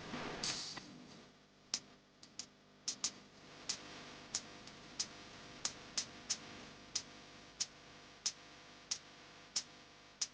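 A mechanical click repeating at an even pace, about three clicks every two seconds, after a brief rustle at the start.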